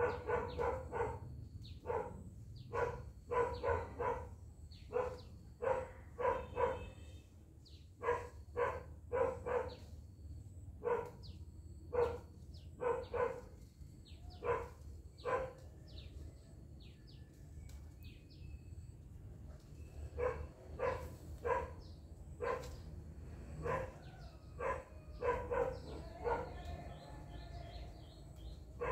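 A dog barking over and over in short barks, one or two a second, often in quick runs of two or three, with a lull of a few seconds about halfway through. Birds chirp faintly.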